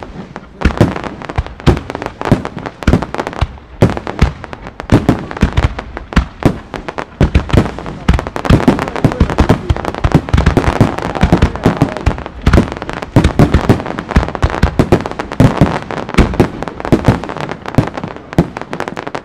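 Aerial fireworks fired as a rapid barrage: many shells bursting in quick succession, several sharp bangs a second, overlapping with crackle. The bursts run thickest and most continuous in the middle.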